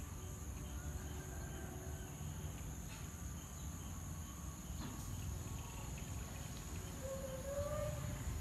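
Steady high-pitched insect buzzing over a low rumble, with a faint short call near the end.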